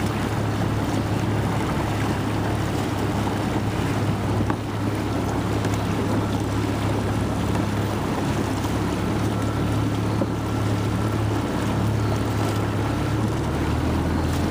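Motorboat engine running steadily at a low hum, with wind buffeting the microphone and water noise.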